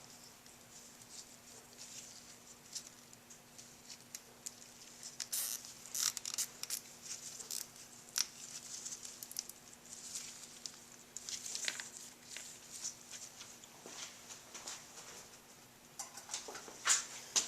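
Scattered light clicks, scratches and rustles of small hand work on a dirt bike's front end, irregular and faint, with a few sharper clicks about five to seven seconds in and again near the end.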